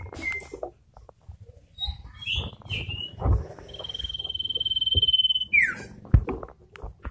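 Male iora in breeding condition calling: a few short chirps, then a long even trill lasting about a second and a half, ending in a quick falling note. Scattered light knocks are heard beneath the calls.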